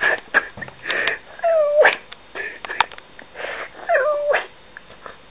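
A young man sobbing: short breathy gasps between two drawn-out whimpers that waver in pitch.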